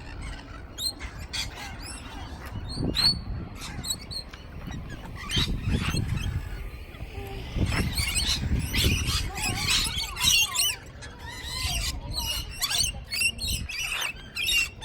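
A flock of parrots calling, many quick high chirps and screeches overlapping, busiest in the second half, with a low rumbling noise in the middle.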